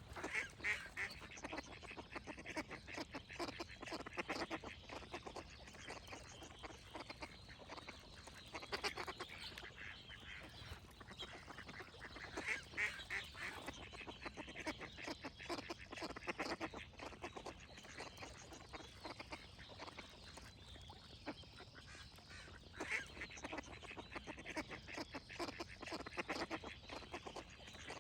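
Ducks quacking in repeated bursts of rapid calls, several loud flurries spread through the stretch, with faint songbird calls high above them.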